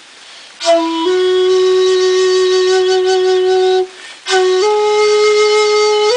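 A 1.9 shaku shakuhachi playing slow, long held notes. After a brief pause, a note begins under a second in, steps up slightly and is held for about three seconds. After a second short break, another note starts and steps up a little higher and is held.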